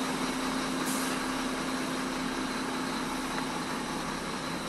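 Sinotruk Howo Max tractor head's 400 hp diesel engine running steadily at idle, heard from inside the cab as an even hum with one steady tone over it.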